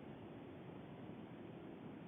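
Steady, faint background hiss with no distinct sounds in it.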